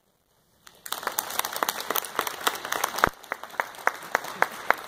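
An audience applauding, starting about a second in, with one person's claps close by standing out, about three or four a second.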